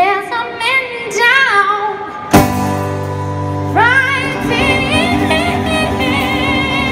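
Woman singing live with acoustic guitar backing: quick melismatic vocal runs, then a sudden loud strummed chord about two seconds in that rings on, and a long belted high note with vibrato.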